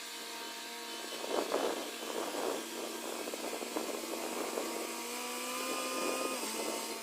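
A small motor running steadily, its pitch dipping briefly near the end, with rough scraping noise over it in the first half.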